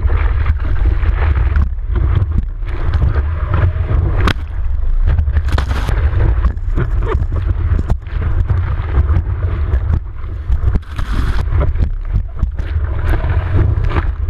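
Heavy wind rumble buffeting a GoPro camera's microphone, mixed with ocean water rushing and splashing while surfing, with uneven gusts and sharp splashes throughout.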